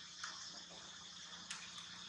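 Steady, faint, high-pitched insect chorus, with two short sharp crackles about a quarter second and a second and a half in.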